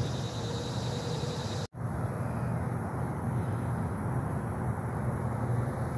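Outdoor ambience among trees: a steady low rumble of wind on the microphone with a faint, steady high hum above it. It is broken by a moment of total silence a little under two seconds in.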